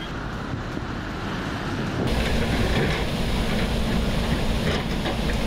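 A swollen mountain river in flood rushing over rocks, a steady dense roar of water. About two seconds in it switches abruptly to a louder, heavier rush with more low rumble.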